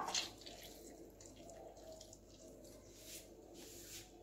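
Half a lemon squeezed by hand over raw chicken pieces, its juice dripping onto the meat: a sharp squish at the start, then faint soft squishes and drips.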